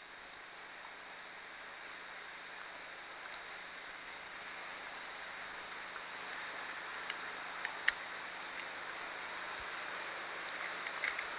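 Steady hiss of water from a garden hose running through flushing muffs on the outboard's lower unit, slowly getting louder, with a few light clicks of handling on the motor and compression tester, the sharpest about eight seconds in.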